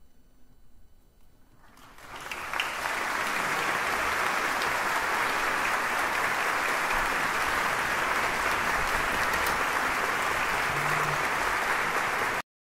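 Audience applauding: the clapping rises quickly about two seconds in, holds steady and dense, then cuts off suddenly near the end.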